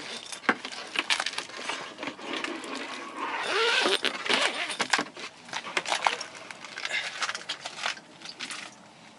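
Irregular light clicks and taps from small hard objects, with a louder rustle about halfway through.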